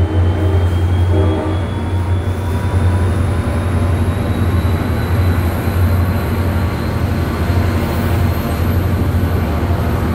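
Diesel-hauled NJ Transit passenger train pulling away at close range: a loud steady low drone with the rumble of the passing coaches, and a faint whine slowly rising in pitch as the train gathers speed.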